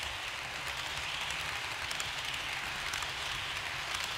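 HO-scale model train running along the track close by: a steady whirring hiss from its motor and wheels on the rails over a low rumble, with faint light clicks.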